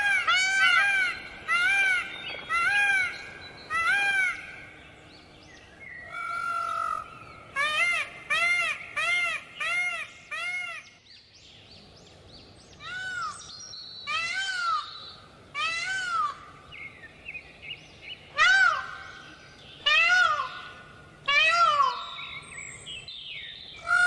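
Indian peafowl (peacock) calling: loud, repeated rising-and-falling honking calls, about two a second, in bursts of several with short pauses between them.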